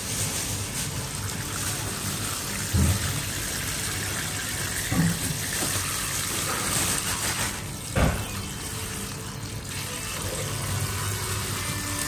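Kitchen tap running water into a sink or container, with a few knocks about three, five and eight seconds in.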